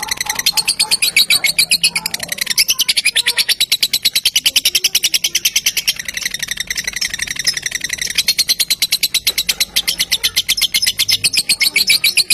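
Lovebird singing a long, rapid, high-pitched chattering trill of many notes a second, with a couple of brief dips. This is the 'ngekek panjang' (long ngekek) that keepers play as a lure to set other lovebirds singing.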